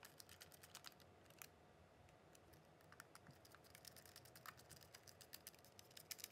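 Faint, irregular small clicks of a screwdriver turning a small screw into a plastic Bosch drill battery case.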